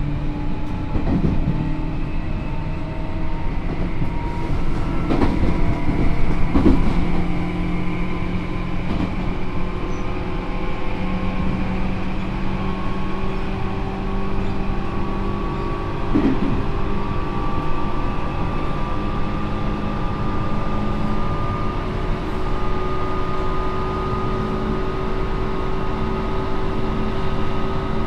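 Onboard running sound of a Tobu 9000 series armature-chopper electric train car: steady motor and chopper hum with several held tones, a few rising slowly in pitch, over rail noise, with a handful of rail-joint knocks in the first half. The traction motor sound is slightly off, by the recordist's account.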